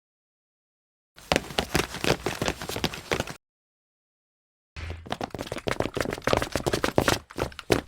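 Foley sound effects for a clone trooper: two separate clips of rapid clattering and clicking, each breaking off into dead silence.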